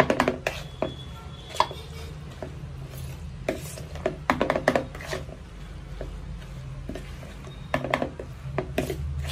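Steel spoon stirring a thick, wet filling in a plastic mixing bowl: clusters of scrapes and light knocks against the bowl, with short pauses between them. A low steady hum runs underneath.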